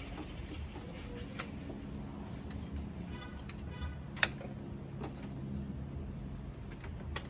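Scattered sharp clicks and taps of hand tools on metal over a low steady hum, with one louder click about four seconds in.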